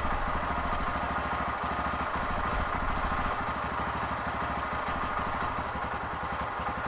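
Bajaj Pulsar N160's single-cylinder fuel-injected engine running steadily at a high idle after a cold start, up around 3,000 rpm: the owner blames a faulty throttle position (TPS) sensor for the raised idle.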